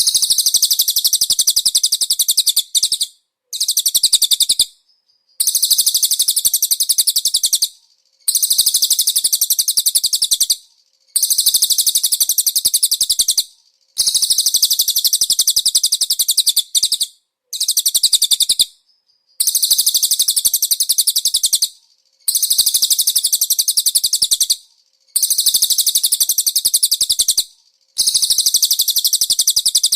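Recorded cililin bird song, a very high, rapid chirping trill given in phrases of about two to three seconds with short pauses between them, repeated about ten times. It is a masteran track of the kind played to caged konin birds to teach them the cililin song.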